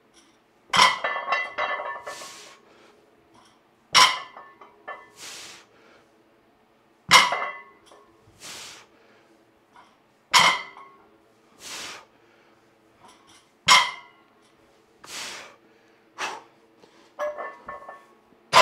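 A loaded barbell's iron plates clank against the floor at each rep of a set of deadlifts, about one rep every three seconds, each clank with a short metallic ring. A sharp breath follows about a second after each clank.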